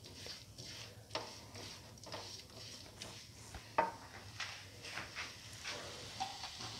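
A spatula scraping and tapping against a frying pan in an irregular run of short strokes while a mixture is stirred and sautéed. One knock a little past the middle is sharper than the rest.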